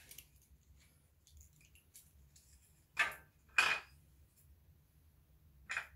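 Three short hard clatters of objects being handled: about three seconds in, again half a second later, and once near the end, over a faint low hum.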